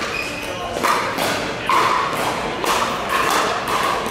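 Pickleball paddles hitting a plastic pickleball in a rally: sharp pops about a second apart, ringing in a large indoor hall.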